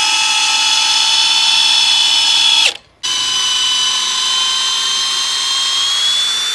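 Cordless brushless hammer drill running on speed 2, a steady high motor whine with overtones. It stops abruptly about two and a half seconds in and restarts a moment later, its pitch creeping slightly upward.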